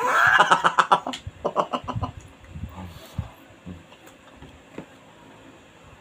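A man's loud wordless vocal outburst as he takes a bite of sushi: a rising cry that breaks into a quick run of short pulses for about a second, then softer low mouth sounds while he chews.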